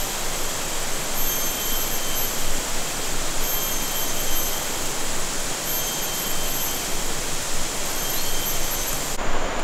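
Steady outdoor rushing hiss, with a thin high tone that comes in for about a second roughly every two seconds.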